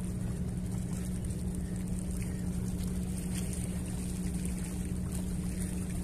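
Steady low drone of an engine running, a constant hum over a low rumble that does not change.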